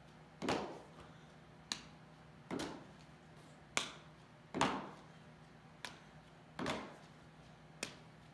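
A baseball fielded on short hops with a leather glove: eight impacts about a second apart, a fuller thud with a short ring alternating with a sharp click.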